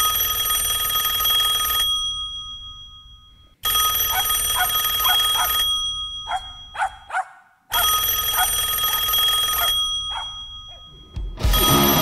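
Old rotary-dial telephone's bell ringing three times, each ring about two seconds long and fading out. A dog barks several times between the rings, and music starts near the end.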